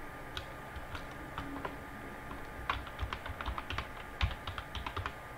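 Typing on a computer keyboard: a few scattered keystrokes, then a quick run of keystrokes from about halfway through until near the end.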